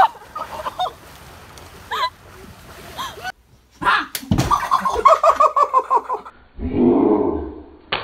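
Short exclaiming shouts over faint water noise, then after a cut a sharp smack about four seconds in, followed by quick bursts of laughter and a louder outcry.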